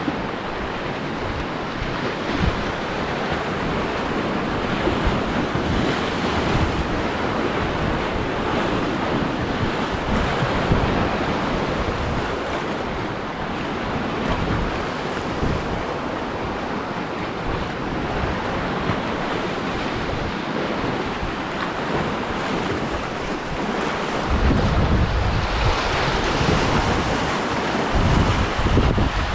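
Sea waves washing against rocks, with wind buffeting the microphone; the wind gusts harder near the end.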